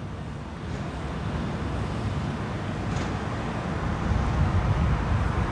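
Steady low rumble of outdoor background noise, slowly growing a little louder through the first few seconds.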